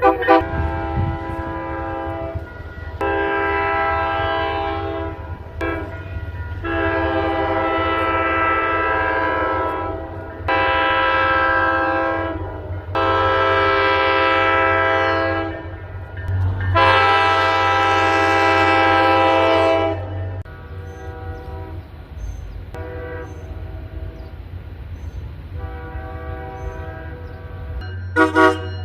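Passenger train locomotive air horn sounding a series of long, loud multi-tone blasts, with a short blip after the first. Fainter blasts follow later, then one sharp short blast near the end, over a low engine hum.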